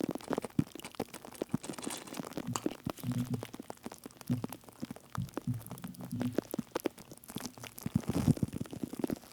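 Wet foam being worked close to a microphone: a dense run of small crackles and clicks, with a low squelching hum in patches.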